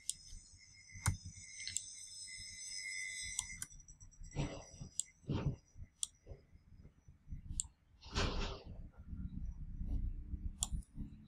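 Computer mouse clicking: a handful of single clicks at irregular intervals as anchor points are placed with a drawing program's pen tool, with a few short, soft puffs of noise in between.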